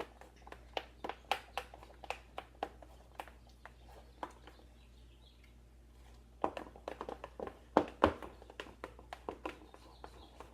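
Utensil stirring a thick glue-based slime mixture in a bowl, clicking and tapping against the bowl a few times a second, with a short lull in the middle and a louder flurry of knocks about two-thirds through.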